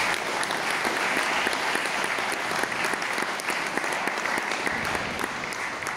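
Audience applauding steadily, a dense run of many overlapping hand claps.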